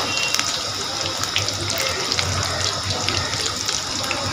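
Breaded bread cubes deep-frying in hot oil in a steel kadai: a steady sizzle dotted with many small crackles and pops.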